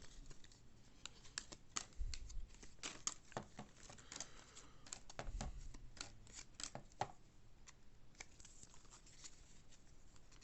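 Baseball trading cards being handled and flipped through one at a time: an uneven string of light paper snaps and clicks, with a dull low bump about two seconds in and another about five and a half seconds in.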